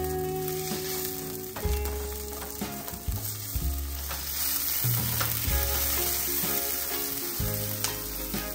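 Food sizzling as it fries in a pan, under background music of held notes over a low bass line that changes about every second.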